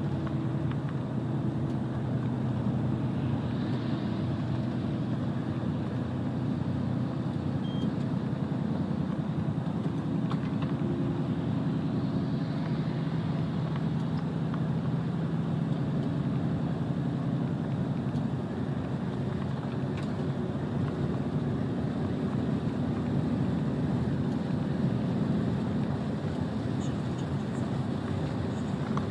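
Truck's diesel engine running steadily under way, with tyre and road noise.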